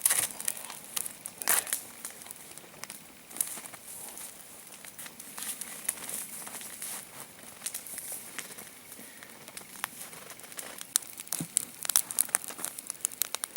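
Evenki-style log fire crackling, with irregular sharp pops and snaps from the burning logs.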